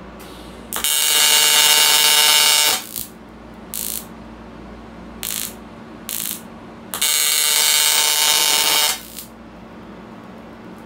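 AC TIG welding arc from a Lincoln TIG 200 set to 200 amps AC at 150 hertz. It buzzes loudly in two welds of about two seconds each, with several short blips of the arc between them.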